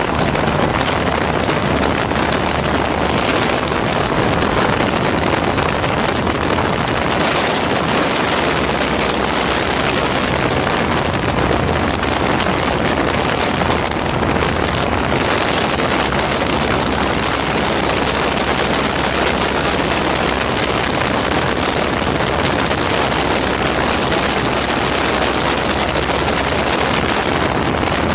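Hirth F33 single-cylinder two-stroke engine and propeller running steadily in cruise flight, mixed with rushing wind in the open cockpit of a MiniMax ultralight.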